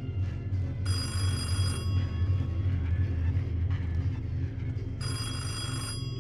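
A telephone bell ringing twice, each ring about a second long and about four seconds apart, over low droning music.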